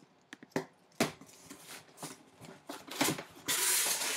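A taped cardboard shipping box being pulled open by hand: scattered knocks and rustles of the cardboard, then a longer scraping rasp near the end as the flaps come apart.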